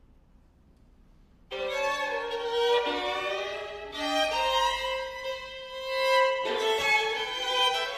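Violins playing a duo passage that enters suddenly about one and a half seconds in, after a near-silent pause. Several notes sound at once, with long held tones.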